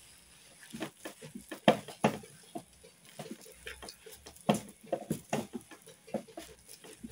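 Wooden spatula stirring and mashing thick cooked wheat dough in a metal pot, with irregular knocks, slaps and scrapes against the pot.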